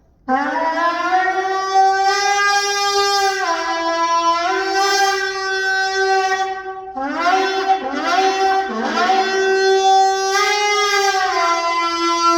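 Gemsbok (oryx) horn shofar blown in two long blasts. Each starts with an upward scoop into a steady note, then wavers between two close pitches. There is a short break for breath about seven seconds in.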